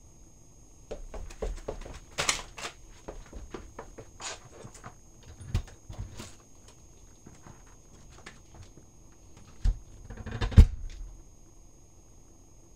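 Scattered small clicks, taps and rustling of hands rigging a trip wire at a front door, with a few duller knocks, the loudest about ten and a half seconds in.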